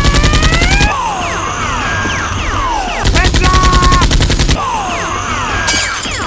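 Dubbed machine-gun fire sound effects for toy blasters: two bursts of rapid, evenly spaced shots, with falling whistling sweeps between the bursts, over music.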